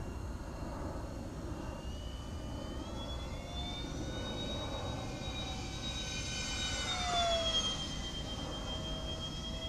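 Model airplane's engine buzzing as it flies past. The pitch rises as the plane approaches, is loudest about seven seconds in, then drops as it passes and settles into a steady drone.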